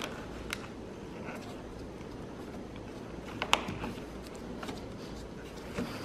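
Handling noise from gloved hands pressing plastic door trim into its rubber seal: a few light taps and clicks, with one sharper click about three and a half seconds in, over a low steady hum.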